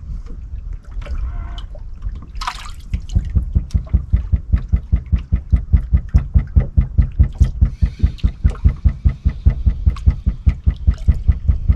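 Water slapping against the boat's hull in quick, even slaps, several a second, starting about three seconds in.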